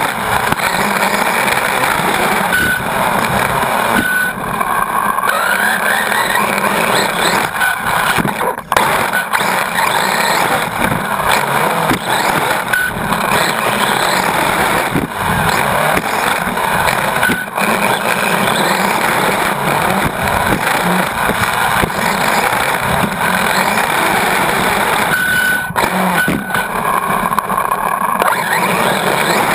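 Onboard sound of an RC8.2 brushless 1/8-scale electric buggy racing on a dirt track: a dense, steady rattle of drivetrain, chassis and tyres on dirt, with the motor whine rising and falling as the throttle changes. Sharp knocks come a few times, from bumps and landings.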